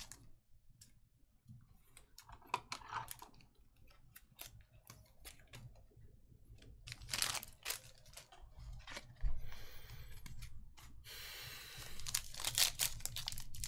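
Trading cards and a foil card pack being handled: scattered light clicks and rustles, a light thump about nine seconds in, then a steady crinkling of the foil wrapper as the pack is torn open near the end.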